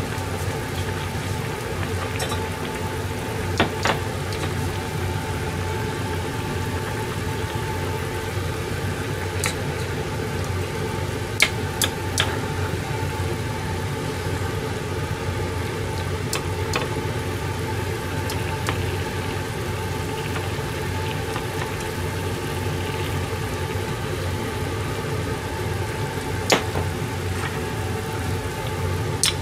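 Steady hum and simmer of a frying pan of vegetables in broth on a gas burner, with a few short metallic clinks of a ladle against the pan as broth is spooned over.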